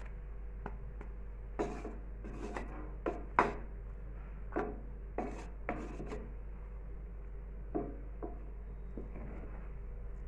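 Wooden spatula scraping and knocking against an aluminium pot while turning over dum-cooked biryani rice, in a series of irregular strokes. The strokes are loudest about three seconds in.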